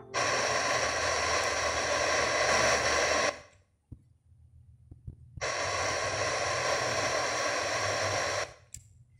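FM static hiss from a Pioneer MVH-98UB car stereo's speaker while it auto-seeks for a station. Two stretches of hiss of about three seconds each are separated by about two seconds of silence, and the hiss cuts off again near the end.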